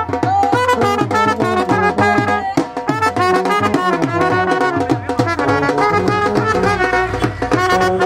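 Live brass band: brass horns playing a melody over a dhol drum beating about five strokes a second.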